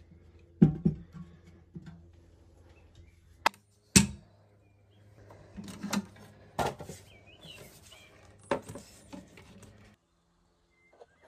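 Steel door of a small electronic-keypad wall safe being shut and locked: a series of metallic clunks and clicks, the loudest about four seconds in as the door closes, then more clicks as the handle knob is turned to throw the bolts.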